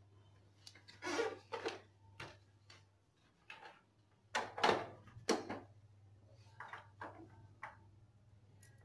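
Hard plastic parts of a motorcycle headlight housing knocking and rattling as they are handled and fitted, in two clusters of knocks about a second in and near the middle, with a few lighter clicks after.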